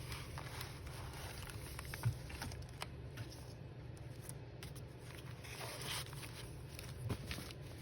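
Faint rustling and light tapping of paper and fabric pieces being handled and arranged, with a few small clicks, over a steady low hum.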